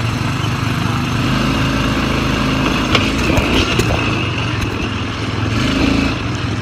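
ATV (quad bike) engine running under way, its pitch rising and falling a little with the throttle, with a few knocks and rattles about halfway through.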